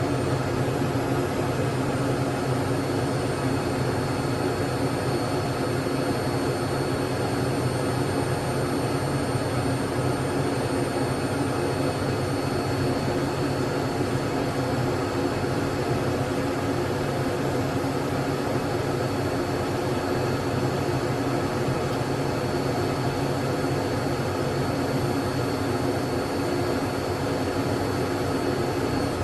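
Learjet jet engines idling steadily, heard from inside the cabin: an even rush of noise with a constant high-pitched whine over it.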